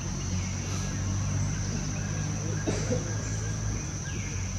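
A baby macaque giving a few short, thin squeaks, one near the middle and a falling one near the end, over a steady high-pitched insect drone and a low hum.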